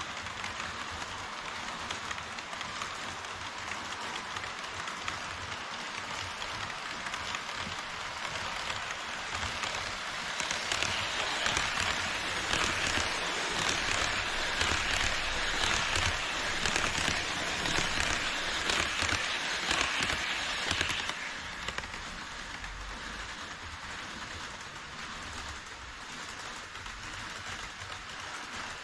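HO scale model trains running on KATO Unitrack: a steady metallic rattle and hiss of wheels over the rails. It grows louder for about ten seconds in the middle as an E5 Shinkansen model passes close by, then eases back to a quieter clatter.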